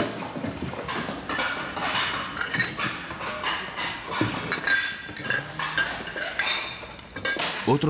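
Household objects clattering and clinking as they are handled and sorted: a busy run of small knocks and chinks.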